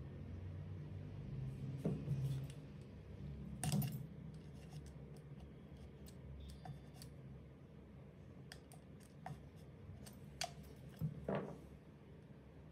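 Scattered clicks, taps and knocks of hands handling and fitting the plastic housing parts of a Makita DHR243 cordless rotary hammer, with a few louder knocks.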